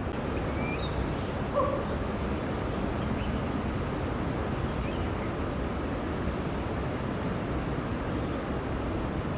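Steady outdoor rushing ambience with a few faint, short high chirps. One brief louder call comes about a second and a half in.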